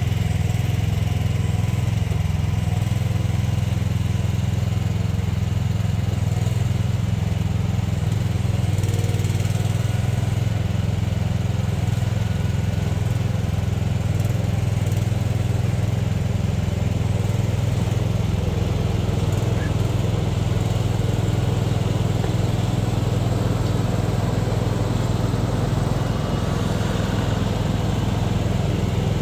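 Machinery engines running steadily with a low, even drone: a one-ton mini excavator at work, joined by a compact tractor with a front loader that comes in close near the end.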